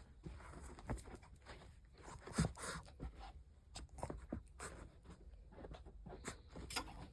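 Shih Tzu playing: irregular scratching, rustling and light taps, with one louder thump about two and a half seconds in.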